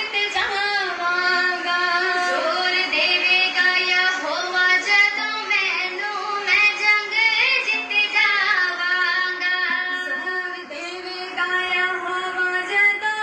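Music: a worship song sung in a high voice, the melody sliding between held notes.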